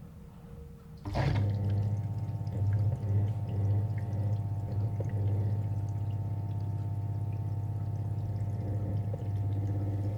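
An electric household appliance switching on with a sudden click about a second in, then running with a steady low hum and a few steady higher tones.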